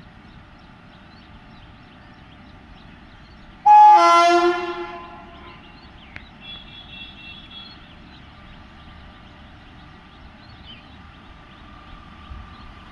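WAP-1 electric locomotive's air horn sounding one short, loud blast about four seconds in, then fading out.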